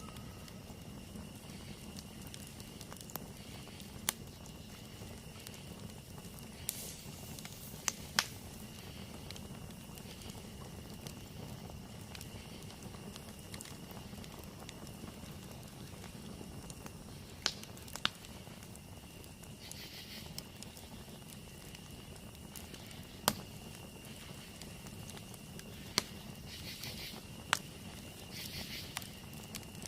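Campfire burning with a soft low rustle of flames and scattered sharp crackles and pops, a few of them louder. Behind it, night insects keep up a steady high-pitched trill, with brief pulsing insect calls near the end.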